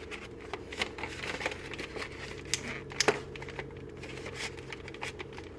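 Cookie packaging crinkling and rustling in irregular small clicks as cookies are taken out, with one sharper crackle about three seconds in.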